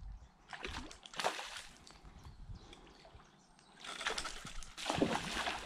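Hooked salmon thrashing and splashing at the river's surface in two bouts, the first about half a second in and a louder one from about four seconds in.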